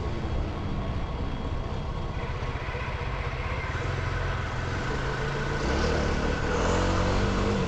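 Dual-sport dirt bike engine running while riding, its note holding steady and then rising over the last couple of seconds as it accelerates.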